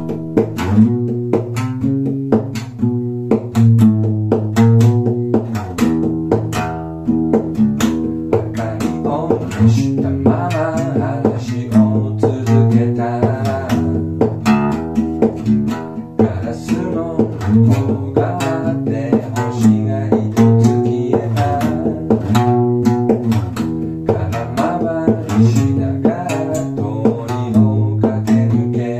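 Acoustic guitar strung with a single string, plucked in a steady repeating line of low, bass-register notes, each with a sharp attack.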